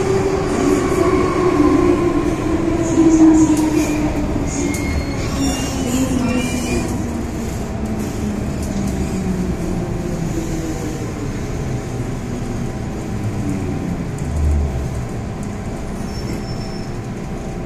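MTR Kwun Tong Line M-Train metro car running, its traction motors whining in a tone that falls steadily in pitch as the train slows, over wheel-on-rail rumble. A short low thump comes near the end.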